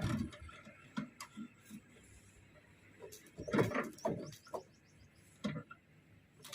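A Bajaj Classic two-stroke scooter being kick-started: the kick lever is stamped down about twice, each kick briefly turning the engine over without it catching, with light clicks between kicks.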